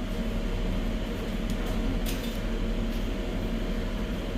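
Air fryer running, its fan giving a steady hum while the chicken cooks.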